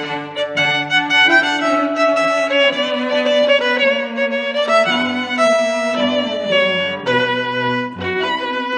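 Background music: a violin playing a melody of held notes over lower accompanying notes.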